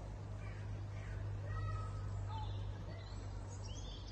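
Flock of flamingos calling, a few short nasal calls scattered over a steady low hum.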